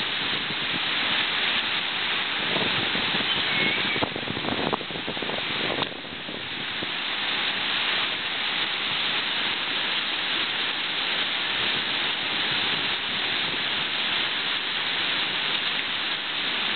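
River rapids rushing over boulders: a loud, steady hiss of whitewater. A few knocks and a short drop in level come about four to six seconds in.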